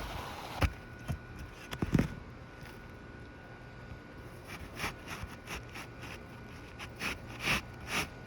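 A new roof shingle being worked into place under the shingles above, scraping and rustling. There are sharp knocks about half a second and two seconds in, then a run of lighter taps and clicks near the end.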